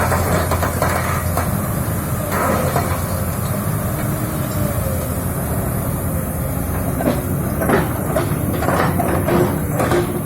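Komatsu PC200-7 excavator's six-cylinder diesel engine running steadily, with a hiss over it for the first few seconds and a run of sharp metal knocks and clanks in the second half.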